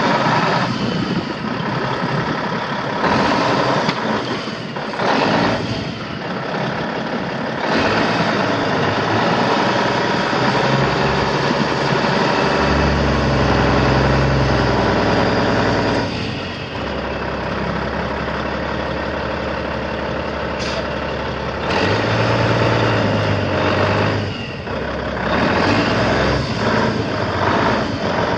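The Cummins N14 inline-six diesel of a 1999 Peterbilt 379 truck tractor running as the tractor drives slowly. The engine note rises and falls with the throttle, with heavier, deeper stretches around the middle and again later.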